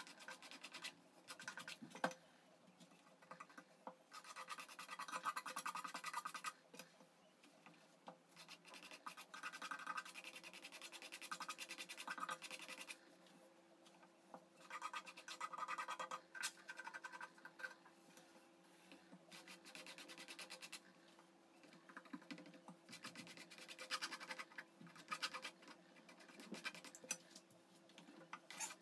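Brush bristles and a palette knife scraping and rubbing over a canvas coated with thick chalk-and-glue ground, in irregular bouts of strokes, as the ground is spread and smoothed.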